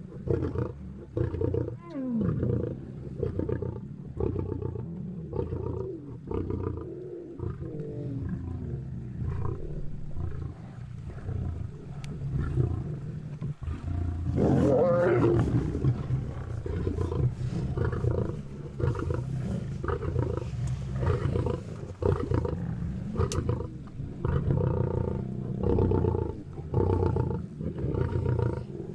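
Lions growling and snarling over a zebra kill as they feed, a continual run of short, rough calls, with a louder snarl about halfway through.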